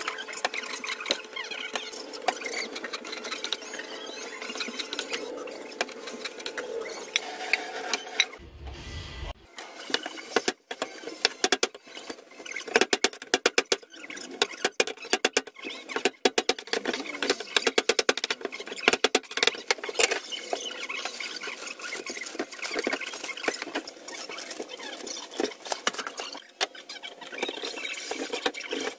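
Kitchen knife cutting fish on a plastic cutting board: irregular clicking, tapping and scraping as the blade chops through fish heads and bones, densest in the middle stretch. A faint steady hum is under the first several seconds.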